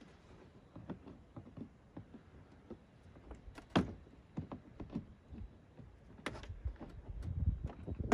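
Pliers twisting a binding wire to hold a scooter headlight in place, with irregular clicks, scrapes and small knocks against the plastic front fairing; a sharp click about four seconds in.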